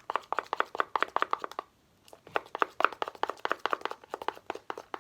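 Can of shaving foam being shaken, its mixing ball rattling in quick clicks, about eight a second, in two bouts with a short pause between.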